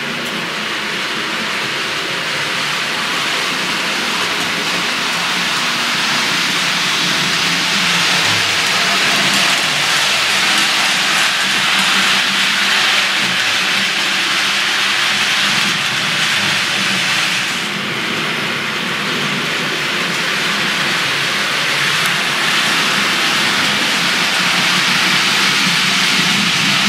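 TT-scale model freight train, an analogue BR 187 electric locomotive hauling open wagons, running along the layout track: a steady rushing hiss of wheels on rails that dips briefly about two-thirds of the way through.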